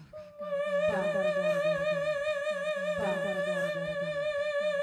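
A woman's voice holding one long high note with vibrato, layered over electronically looped vocal phrases that repeat about every two seconds.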